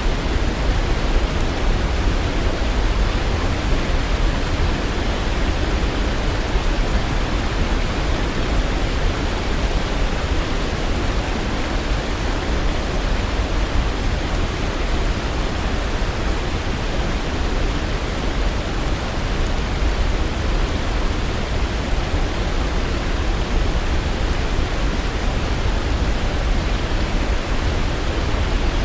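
Waterfall's water rushing in a steady, unbroken roar, deepest at the low end, with no birds or other sounds standing out.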